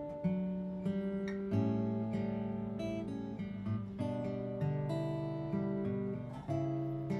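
Guitar fitted with new bone parts, played as a sound check: picked notes and chords follow one another every half second to a second, each ringing on as it fades.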